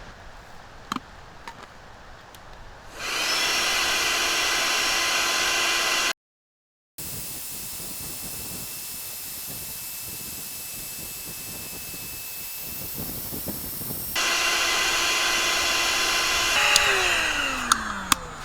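A small electric motor, like a pump or blower, starts about three seconds in and runs with a steady whine, drops out briefly, and runs on, quieter for a while and then loud again. Near the end it winds down with a falling pitch as it is switched off.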